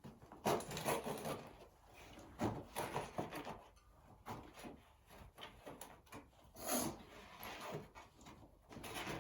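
Bicycle tyre being worked off its wheel rim by hand and tyre lever: irregular rubbing and scraping of rubber against the rim, with scattered knocks and clicks.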